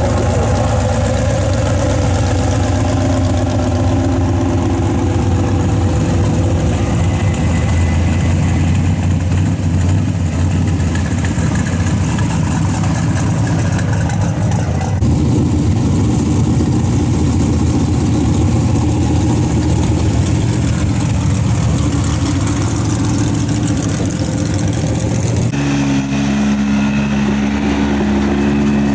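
Vehicle engines idling steadily, with no speech over them. The engine note changes abruptly about halfway through, and again near the end, where a different, stronger-toned engine takes over.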